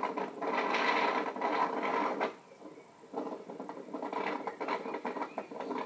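Audio of a video playing through a tablet's small speaker: a rapid, mechanical-sounding clicking and rattling over a steady tone, dropping away briefly a little after two seconds in.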